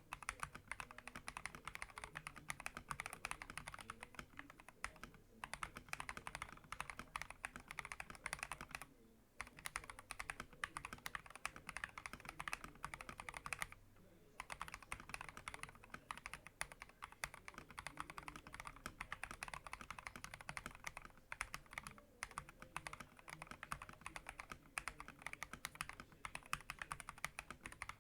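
Continuous fast typing on an FL eSport MK870 mechanical keyboard with Akko Rose Red linear switches and PBT XDA-profile keycaps, a dense run of keystrokes with two short pauses, about 9 and 14 seconds in.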